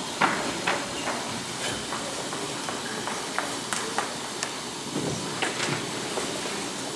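Auditorium ambience during a pause on stage: a steady hiss with about a dozen small knocks and clicks at irregular intervals.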